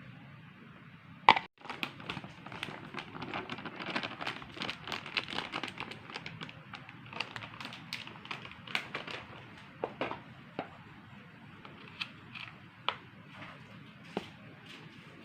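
Hands-on kitchen food preparation: shredded vegetables and flour being worked in a bowl, a dense stream of small crackling, rustling noises that thins out after about nine seconds into scattered clicks. A single sharp knock stands out just over a second in.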